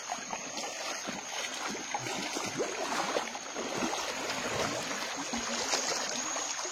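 River water flowing and trickling over the bed, with small irregular splashes, under a steady high hiss.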